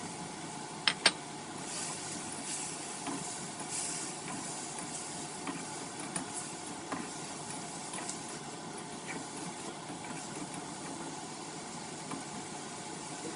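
Prawns and celery stalks sizzling in a frying pan with a steady hiss, with a spatula scraping and clicking against the pan now and then. Two sharp clicks come about a second in.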